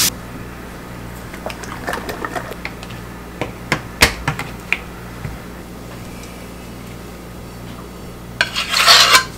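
Handheld side-cutting can opener clicking and ticking as it is worked around the rim of a metal can. Near the end comes a louder, scratchy metallic rasp as the cut lid is pulled off.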